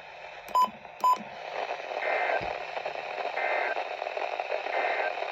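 Emergency Alert System end-of-message over a radio's steady hiss: two short loud beeps about half a second apart, then three short warbling two-tone data bursts of the SAME end-of-message code, evenly spaced about a second and a half apart.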